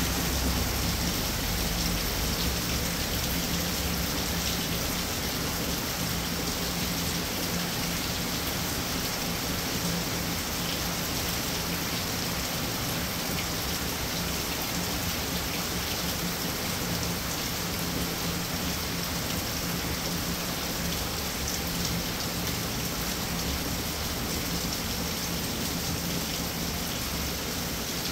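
Rain falling steadily, an even unbroken hiss of drops on a surface.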